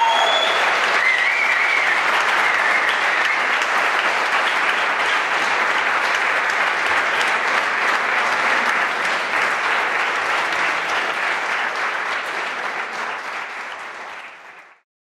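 A roomful of people clapping and cheering, with a few shouts in the first couple of seconds. The applause fades and cuts off just before the end.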